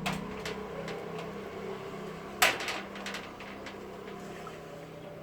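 Small clinks and taps of a tea strainer and spoon against a drinking glass while grated kencur mixed with water is strained, with one sharper knock about two and a half seconds in.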